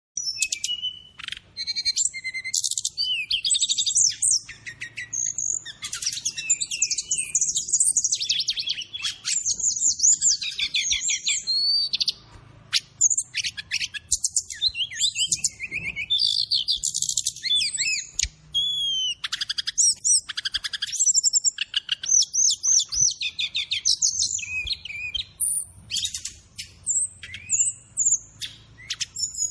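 Brown-chested jungle flycatcher (SRDC) singing continuously: a fast, varied run of high chirps, trills and slurred whistles with only brief breaks, about 12 and 18 seconds in. It is a gacor tutor song with other birds' calls (isian) mixed in.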